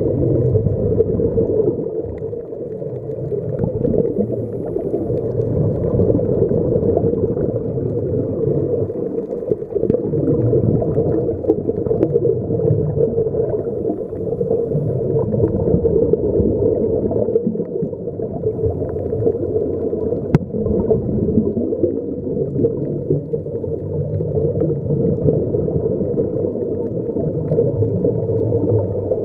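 Muffled underwater noise: a steady gurgling rumble of water and air bubbles escaping from sea-walker diving helmets fed by a surface air hose.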